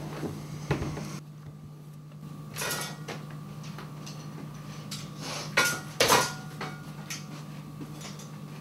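Glassware and dishes knocking and clinking a few times, two louder knocks close together a little past halfway, over a steady low electrical hum.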